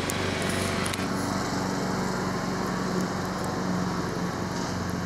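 Steady drone of a small engine running, an even low hum that holds unchanged throughout.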